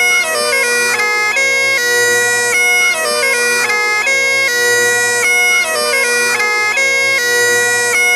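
Bagpipes playing a lively tune: the chanter's melody moves quickly from note to note over the unbroken steady drone.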